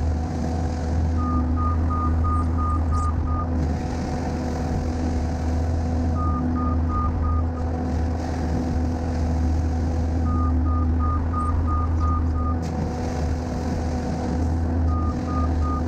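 Skid steer engine running steadily at working speed, with a backup alarm beeping about three times a second in four separate runs as the machine reverses.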